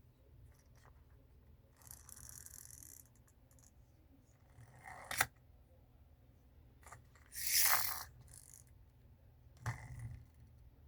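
Small objects being handled at close range: a couple of scrapes, a sharp click about five seconds in, a louder scrape near eight seconds and a soft knock near the end.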